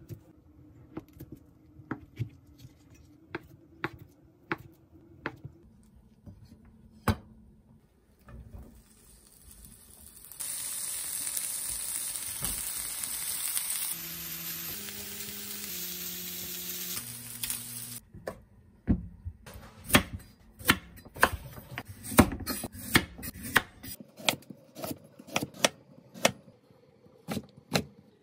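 A chef's knife slicing through a block of canned ham on a wooden cutting board, with scattered taps of the blade on the board. About ten seconds in, ham strips sizzle in a frying pan for about eight seconds. Then rapid knife strikes on the wooden board as carrots are cut into matchsticks.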